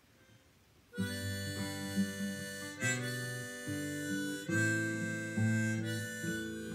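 Acoustic guitar and a harmonica in a neck rack start playing about a second in: strummed chords under held harmonica notes, an instrumental opening to the song.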